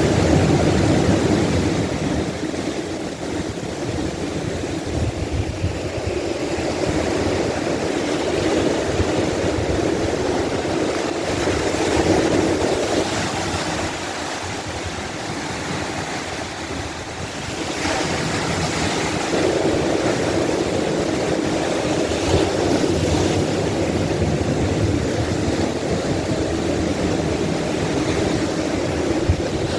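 Ocean surf washing onto a beach: a continuous rush of breaking waves that swells louder about twelve and again about eighteen seconds in.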